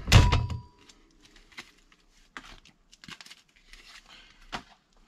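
A loud knock of hands against the sheet-metal air-handler cabinet at the start, with a brief ringing tone. It is followed by faint scattered clicks and rustles as hands work inside the coil compartment.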